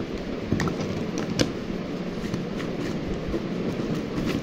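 Plastic oats jar, lid and scoop being handled: a couple of sharp plastic clicks and knocks, the loudest about one and a half seconds in, over a steady background hiss.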